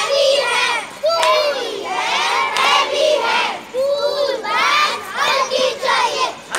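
A group of children shouting together in short, loud, repeated calls, many voices at once, as in chanted slogans.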